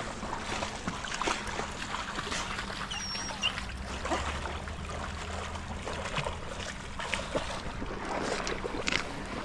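A dog swimming in shallow river water, with light splashing and lapping as it paddles toward the shore.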